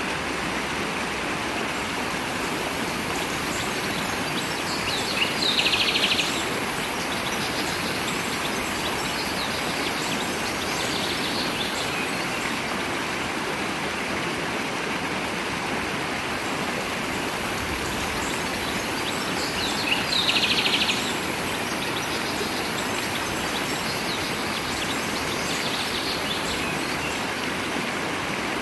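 Steady rush of a flowing stream, with a bird giving a short rapid trill twice, about five seconds in and again near twenty seconds, and fainter calls in between.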